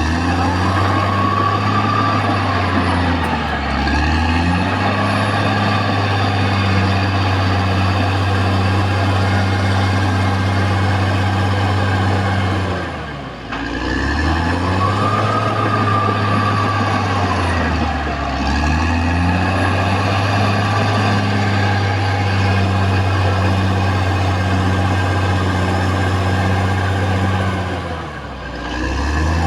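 Caterpillar D6R XL bulldozer's diesel engine running steadily, its note dipping and then picking back up several times as the load or throttle changes.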